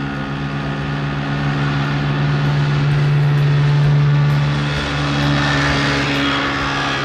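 Vehicle engine sound effect: a steady low engine drone with a rushing hiss that swells and then eases, loudest about four seconds in.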